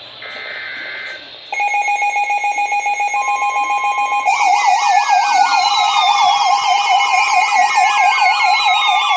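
Weather radio alert signals: a short burst of digital header tones, then a steady pulsing alert tone about a second and a half in. About four seconds in, a fast warbling siren-like alarm and repeated falling sweeps join it, from several receivers going off together. This announces an incoming warning.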